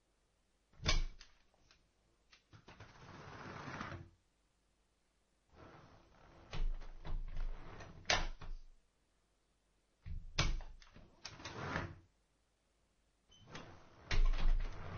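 Wooden door opened and closed several times: sharp latch clicks and knocks, with a longer swinging sound between them, in four separate bursts with quiet gaps.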